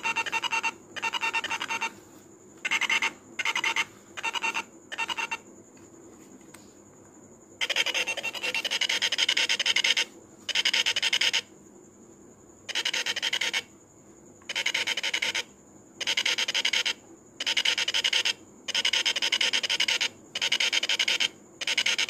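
Small loudspeaker of a homemade remote-controlled doorbell buzzing harshly in about fifteen short bursts, from half a second to two and a half seconds long. Each buzz starts and stops sharply, switched on and off by the infrared remote's button presses.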